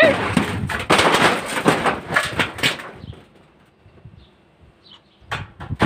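Running footsteps on dirt with rustling of clothing and the handheld camera for about three seconds, then quieter, with a few sharp knocks near the end.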